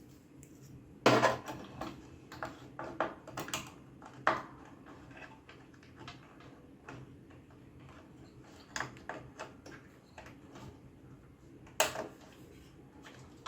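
Clicks and knocks of RAM modules being handled and pressed into a desktop motherboard's memory slots, as the retaining clips snap shut. The loudest click comes about a second in, a run of smaller clicks follows over the next few seconds, and another sharp click comes near the end.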